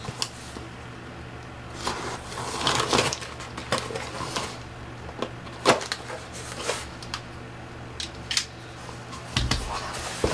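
Cardboard shipping box being cut open and its flaps pulled back, with irregular scraping and rustling of the cardboard and a few sharp clicks, over a steady low hum.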